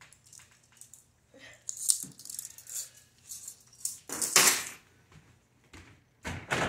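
Metal handcuffs rattling and clinking in a series of short jingles. A louder rustle of movement comes about four seconds in and again near the end.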